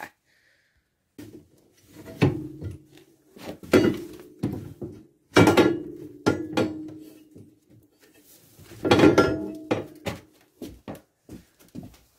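Metal winch mounting plate clanking against the UTV's front frame as it is worked into place: several metal knocks, each followed by a ringing tone, with the one about halfway through ringing on for about two seconds.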